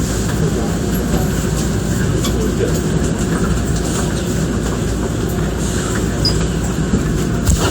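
Steady low rumble and hum of a Nankai Koya Line electric train that has just pulled into the station, with a faint thin high whine and a few light clicks.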